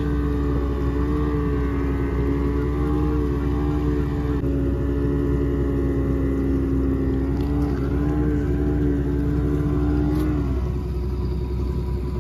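A purse-seine fishing boat's engine and machinery running close by, a steady low rumble under a strong hum. The hum cuts out about ten and a half seconds in while the rumble goes on.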